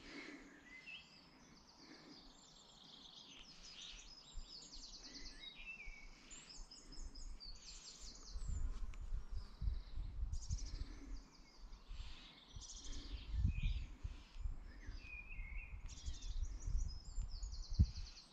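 Several songbirds singing, with many short high chirps and rapid trills overlapping throughout. From about seven seconds in, a low uneven rumble of wind buffeting the microphone comes and goes, rising above the birdsong.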